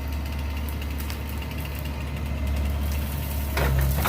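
Excavator's engine running steadily with a low drone, and a run of sharp cracks near the end.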